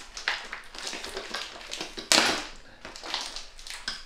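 Kickstand retail packaging being handled and worked open by hand: irregular clicks and crinkling rustles, with a louder burst of crinkling about two seconds in.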